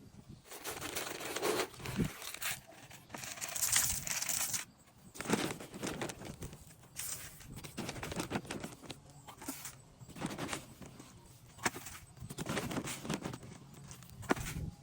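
A bag of chicken feed rustling and crinkling in bursts as it is handled and opened, with scattered small clicks and rattles of dry feed.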